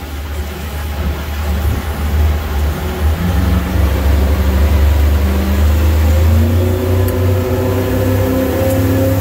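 Boat's outboard engine accelerating, its note rising in pitch and growing louder from about three seconds in as the Regulator 23 center console comes up onto plane.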